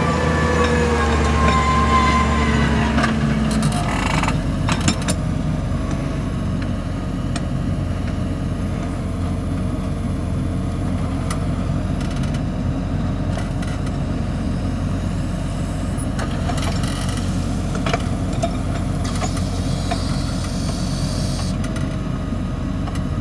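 New Holland T6.175 tractor's diesel engine working under load, loud and close for the first four seconds, then a steadier, lower running with a few knocks.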